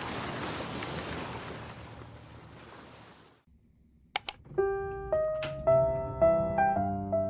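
A steady rushing noise fades out, then after a moment of near silence come two sharp clicks, and light, bright piano background music begins.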